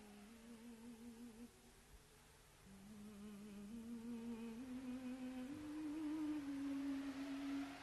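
A slow, wordless melody hummed by a voice, each note held with a slight waver and the pitch stepping between notes. It is faint at first, pauses briefly about two seconds in, then grows louder.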